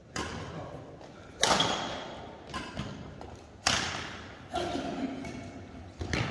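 Badminton rackets striking shuttlecocks in a rally: a handful of sharp smacks a second or two apart, the loudest about one and a half and three and a half seconds in, each ringing on in the echo of the large sports hall.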